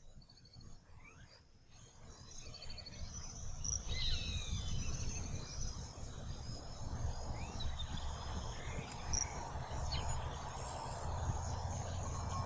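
Rural outdoor ambience that rises about two seconds in: scattered bird chirps and short calls over a steady insect chorus, with a low rumble underneath.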